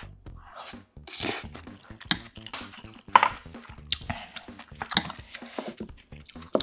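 Close-up eating sounds: a mouthful being chewed, then a series of sharp clicks and taps as chopsticks and a metal spoon knock against dishes and a pan while food is picked up.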